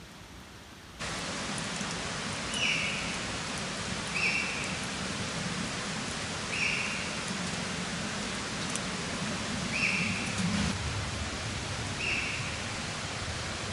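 Steady rushing noise outdoors, cutting in sharply about a second in, with a short high flat-pitched call repeated every couple of seconds over it.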